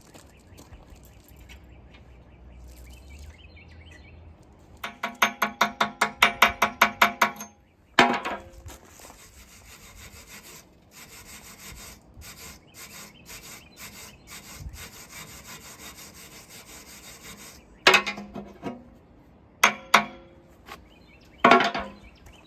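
Hand work on ringing metal: about a dozen quick back-and-forth scraping strokes at roughly five a second, then a sharp hit and a fainter, broken hissing scrape. Several sharp knocks come near the end.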